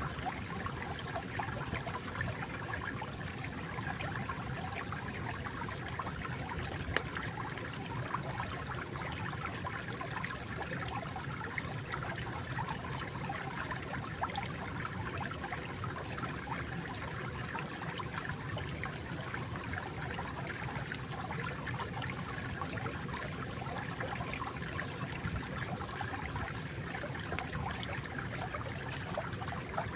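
Water flowing and trickling steadily, with many small splashes and droplets.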